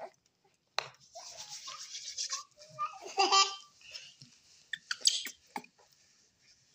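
Baby monkey fussing while being held and handled, giving a string of short, shrill squeals and cries, with a sharp click about a second in.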